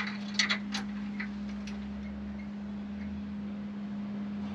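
A few light metallic clicks from a padlock and tie-down chain being handled at the latch, most of them in the first second, over a steady low hum.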